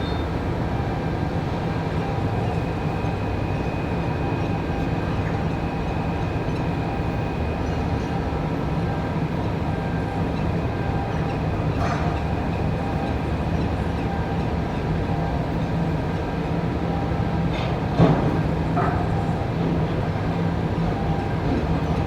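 Steady low drone of port and ship machinery during container loading, with several steady humming tones. A single sharp metallic clank about 18 seconds in, like a container or spreader knocking, with a lighter knock just after.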